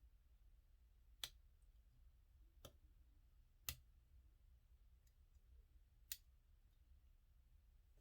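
Four faint, sharp clicks at uneven intervals over a low steady hum: a flag pick and Z-bar tension wrench working the pins of a dimple-core bicycle U-lock.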